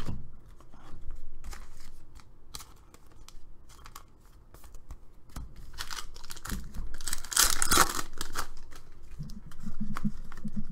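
A foil trading-card pack being torn open and crinkled, the tearing loudest about seven seconds in, with light clicks and rustles of cards being handled around it.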